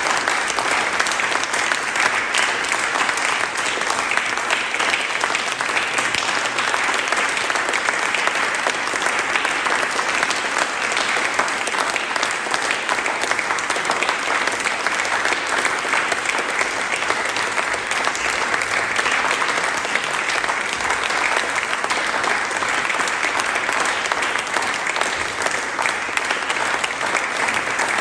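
Audience applauding: dense, steady clapping that keeps up without a break.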